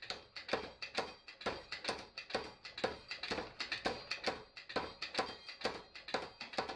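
Hammer blows on red-hot steel on an anvil, forging a leaf hook: a steady run of sharp strikes, about two a second, each with a short metallic ring.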